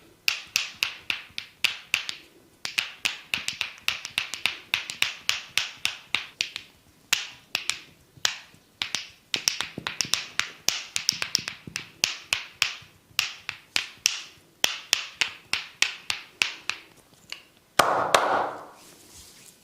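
Rapid sharp hand slaps and taps of a barber's percussive massage, about three or four a second in runs with short pauses. Near the end there is one louder, longer noisy burst.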